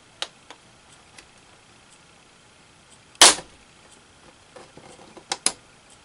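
Clips along the front of an early-2006 MacBook Pro's top case snapping loose from the bottom case as the case is rocked up: a few light clicks, one loud pop about three seconds in, then two quick sharp pops near the end. A fairly awful popping that is normal here, the sign of the clips releasing.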